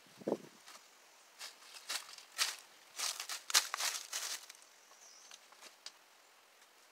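Footsteps crunching and rustling through dry leaf litter: a dull thump just after the start, then a dense run of sharp crackles from about a second and a half in to past four seconds, fading to a few faint ticks.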